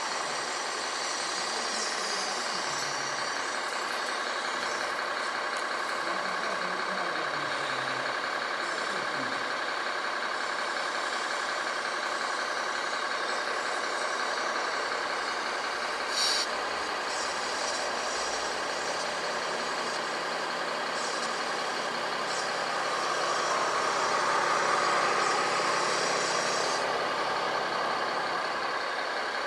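Radio-controlled Caterpillar model excavator working, a steady mechanical whine from its drive as it digs and swings. There is a short sharp click about halfway through, and the whine grows louder and shifts in pitch for a few seconds near the end.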